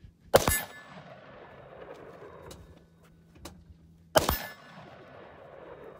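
Two gunshots from a shouldered long gun, about four seconds apart, each followed by a long echo fading off the hillside.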